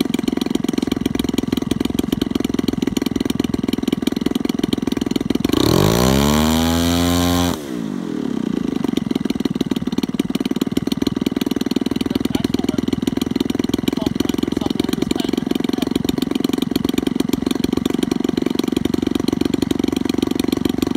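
Engine of a large radio-control model airplane idling steadily. About five seconds in it revs up with rising pitch for two seconds, then is throttled back abruptly to idle.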